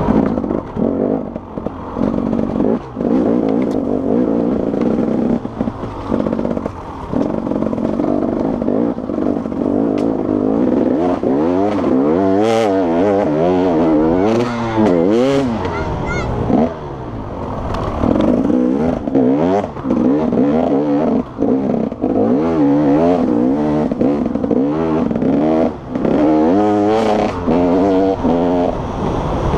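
Enduro motorcycle engine revving hard and easing off over and over as the rider accelerates, shifts and slows along a dirt course. Occasional sharp knocks are heard, and the engine is heard from on the bike itself.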